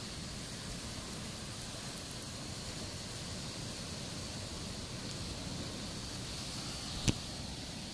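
Steady rushing outdoor background noise with a low, flickering rumble, with one sharp click about seven seconds in.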